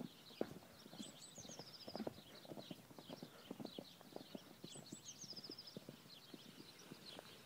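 Hoofbeats of two Irish cob horses running across grass: a rapid, irregular run of dull thuds. High chirping runs above them, with a high falling trill about a second in and again near five seconds.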